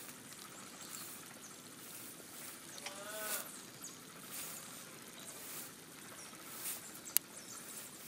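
Quiet outdoor ambience with faint splashing as a fine-mesh seine net is hauled in through shallow water. About three seconds in, a farm animal bleats once, briefly. A single sharp click comes near the end.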